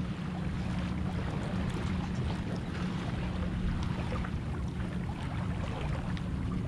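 Steady wind noise on the microphone and water rushing and splashing along the hull of a small sailboat under way, with small splashes ticking throughout.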